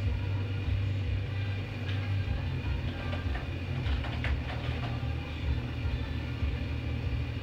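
Steady low rumble and hum, with a few faint clicks of a computer mouse about two seconds in and again around four seconds in.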